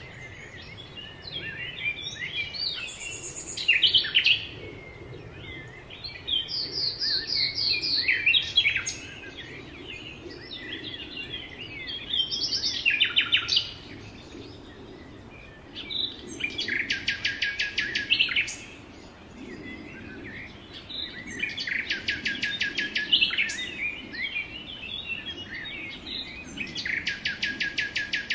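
Several songbirds singing. One bird repeats a fast trilled song of about two seconds every four to five seconds, among shorter chirps and calls.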